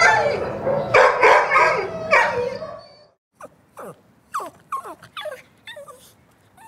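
Dog barking several times in a loud cluster. After a short break it gives a run of quieter, short whimpers that fall in pitch.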